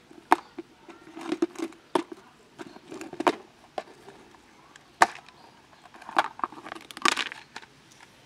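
Clip-lock plastic food container being unlatched and opened by hand: a run of sharp plastic snaps and clicks with crackling rattles between them, the loudest snaps about five seconds in and near the end.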